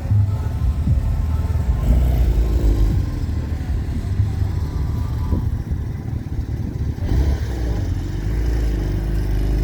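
A Porsche's engine running as the car pulls in at low speed, a deep rumble whose note rises and falls a few times.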